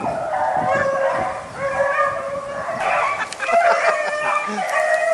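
A pack of hunting hounds baying, several dogs' drawn-out cries overlapping continuously: the dogs are running a rabbit.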